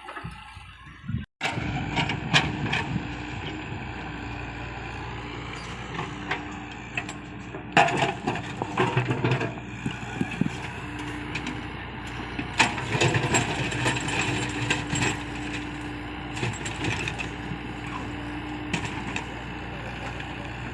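Komatsu PC75UU excavator's diesel engine running at work, with a tone that comes and goes over its steady noise and repeated knocks and clanks of the machine. The sound cuts out briefly about a second in, then runs on.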